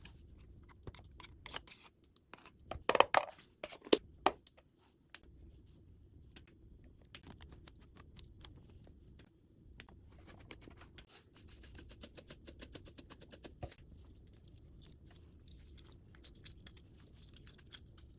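Handling noises of kitchen food preparation: scattered clicks, scrapes and crinkles. Two louder knocks come about three and four seconds in, and a run of fast ticking comes around ten to fourteen seconds.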